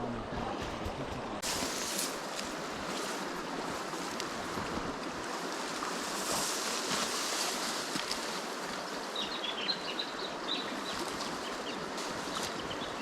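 A river running over rocks: a steady rush of water, with a few faint high chirps in the later part.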